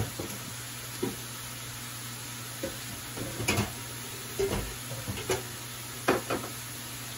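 Vegetables sizzling in an aluminium pot over a steady low hum, with a series of short knocks and clinks of cookware or utensils every second or so.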